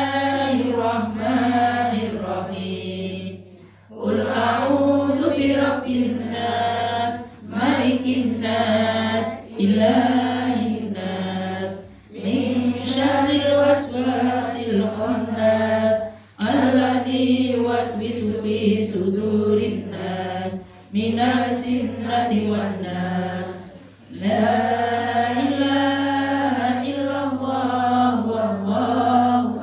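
Women chanting an Arabic tahlil recitation together, one woman leading into a microphone through a loudspeaker, in melodic phrases a few seconds long with short breaks for breath. A steady low hum runs underneath.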